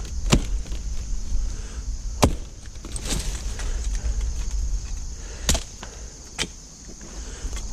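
A hand blade swung through vines and weeds, chopping about five times at irregular intervals of one to two seconds, each a sharp, short strike.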